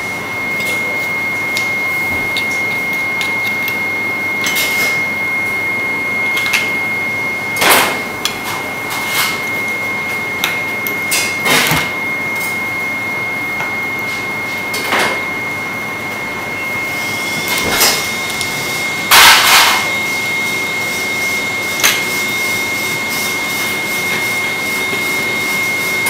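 Oyster knife prying at oyster shells held in a cloth on a plastic cutting board: scattered sharp clicks and knocks, about half a dozen, over a steady high-pitched whine and hiss.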